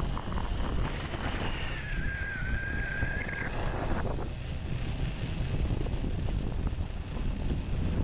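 Electric motors and propellers of a Flitetest Bat Bones tricopter in flight, heard from the camera riding on it: a steady high whine over rumbling wind buffeting. About a second in, a second, lower whine joins, dips and rises again, and stops about three and a half seconds in.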